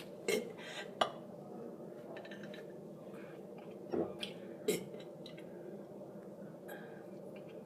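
A few short mouth and throat sounds, soft gulps and clicks, made while working up a burp, with no burp coming. Two come near the start and two about four seconds in, over a steady low hum.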